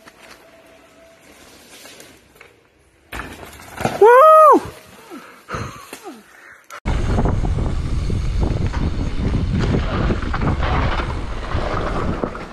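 A short, loud yell about four seconds in, its pitch rising then falling. From about seven seconds a steady rumbling rush of wind and knobby tyres on a dirt trail, picked up by a handlebar-mounted action camera on a mountain bike riding downhill.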